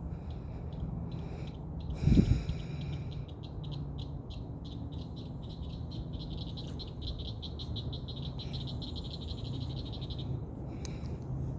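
A thump about two seconds in, then a rapid, evenly pulsed high trill from an animal in the trees, running for about six seconds before it stops.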